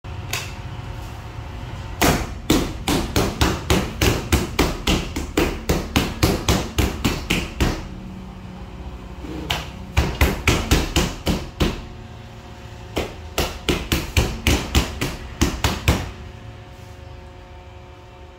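Bread dough being kneaded by hand on a stainless steel worktable: sharp, rhythmic knocks of the dough and hands against the metal table, about three a second, in three runs separated by short pauses.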